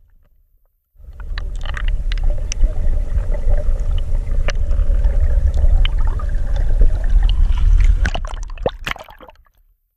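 Water gurgling and sloshing with a heavy low rumble, a faint steady hum and scattered sharp splashy clicks. It starts about a second in and fades out near the end.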